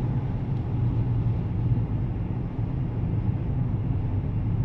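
Steady low rumble of a car driving, engine and road noise as heard from inside the cabin.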